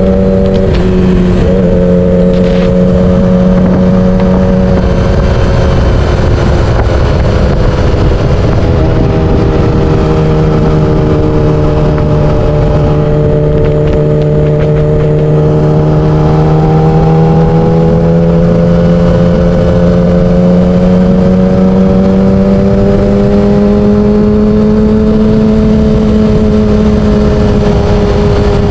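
Yamaha R6's 600cc inline-four engine running under way at a fairly steady speed. Its pitch eases slightly about a fifth of the way in, then climbs slowly through the second half, with wind rushing over the microphone throughout.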